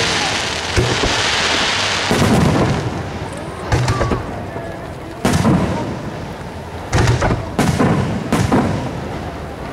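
Aerial fireworks shells bursting one after another, sharp bangs every second or so, each followed by a long rolling rumble, with crackling early on.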